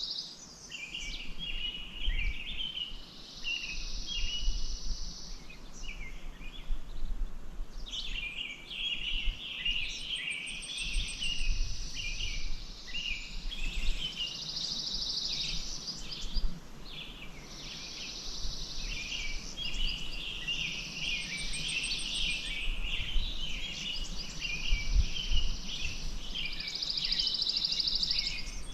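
Outdoor lake ambience of songbirds chirping and calling, with repeated stretches of a high, steady buzz, each a couple of seconds long, over a low background rumble.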